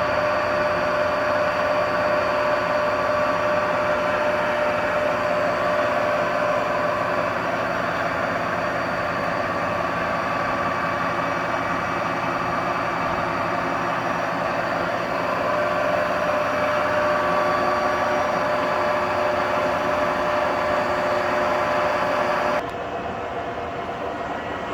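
Hwacheon HL580 engine lathe running on a test run: a steady mechanical whir with a whine running through it. About 22 seconds in, the sound drops suddenly, the whine stops, and a quieter running sound carries on.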